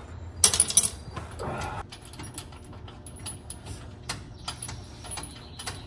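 Sharp metallic clatter about half a second in, then scattered light clicks and rattles: a heavy floor jack being slid into place under the car.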